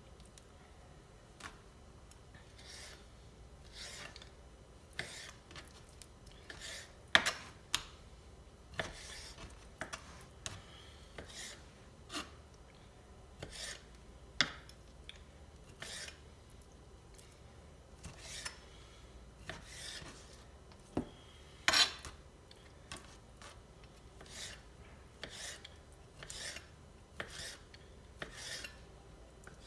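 Kitchen knife slicing raw chicken breast into strips on a plastic cutting board: soft drawn slicing strokes with a tap of the blade on the board, roughly once a second, and a few sharper knocks.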